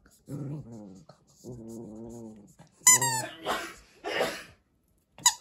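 A small puppy growling in play, two low rumbles, then a squeaky toy squeaked sharply, falling in pitch and followed by a hiss of air. It squeaks once more near the end.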